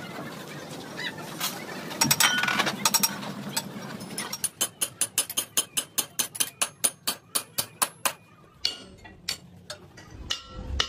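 Hand hammer striking a steel bracket assembly on a truck chassis rail in a quick, even run of metallic blows, about five or six a second for several seconds, then slower scattered knocks. Earlier, heavy steel parts clank and ring loudly.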